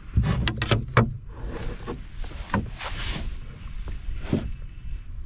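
Canoe paddle working the water: a few uneven splashes and drips off the blade, over a low steady rumble.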